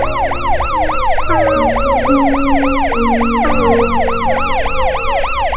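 Police car siren in a fast yelp, rising and falling about four times a second, over music with held low notes.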